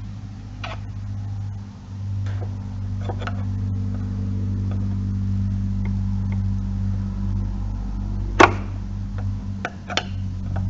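Flathead screwdriver clicking and scraping against the metal spring clip on a hatch gas strut's lower ball-socket end, with one sharp click about eight seconds in. A steady low traffic hum runs underneath.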